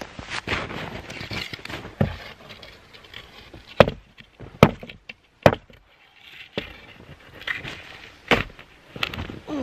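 Hatchet chopping a dead branch: three sharp blows about a second apart near the middle, among the crunch of boots in snow and rustling. Near the end a boot stamps down on the branch with another sharp knock.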